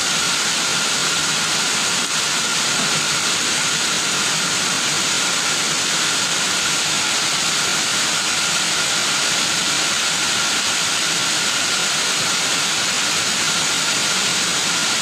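Heavy downpour with muddy floodwater rushing down concrete steps, a steady, unbroken hiss.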